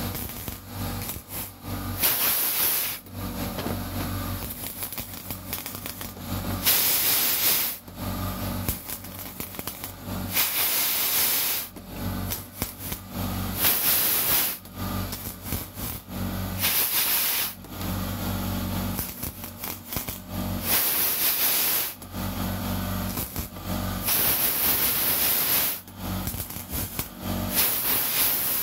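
MIG welder tacking a steel car body panel: about eight short bursts of sizzling arc crackle, each half a second to a second long, every three to four seconds, with a low hum between the tacks.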